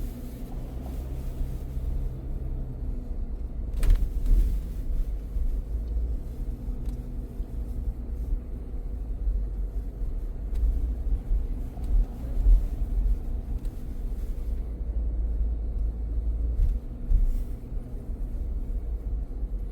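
Car driving, its engine and tyre rumble heard from inside the cabin as a steady low drone. There is one sharp click about four seconds in.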